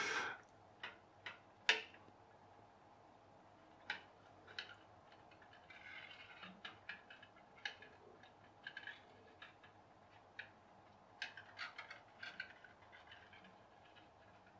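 Faint, irregular light ticks and clicks with soft patches of hiss from a quiet-running pop-pop boat (aluminium mackerel-tin hull, coiled aluminium-tube boiler heated by a tea light) moving about a stainless steel sink; it does not pop loudly. A short rush of noise right at the start.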